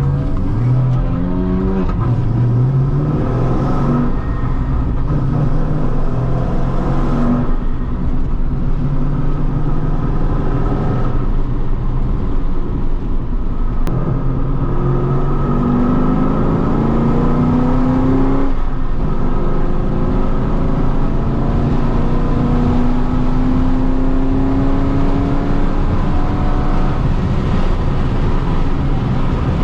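Holden Commodore VE SS Ute's 6.0-litre V8 driven hard on a race track. The engine pitch climbs under acceleration several times, with brief breaks as the driver lifts or changes gear.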